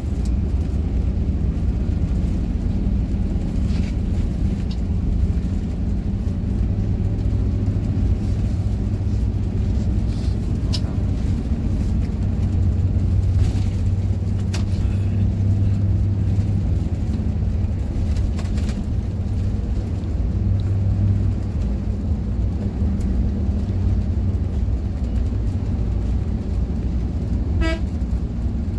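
Intercity bus heard from inside the passenger cabin while cruising: a steady low drone of engine and road noise. Near the end there is a brief horn toot.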